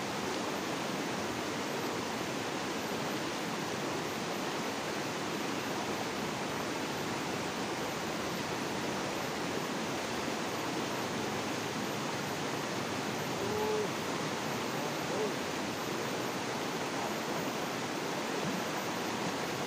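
Fast, muddy river rushing over rocks in shallow rapids: a steady, even roar of water.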